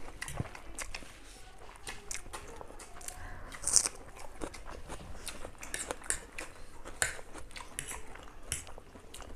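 Close-miked eating of chow mein noodles with forks: chewing and slurping with many small clicks and scrapes of forks on plates. One louder, sharper sound comes about four seconds in.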